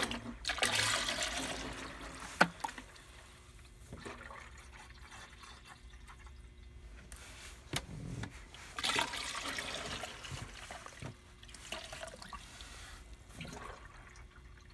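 Engine coolant pouring from a plastic bucket through a funnel into a jug, splashing and trickling. The flow comes in two louder spells, one right at the start and one around nine seconds in, with a sharp knock a couple of seconds in.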